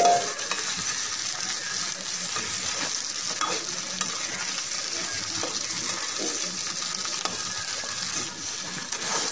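Cut okra sizzling steadily as it fries in oil in a metal kadhai, stirred with a steel ladle that scrapes the pan now and then. The okra is being fried until it browns.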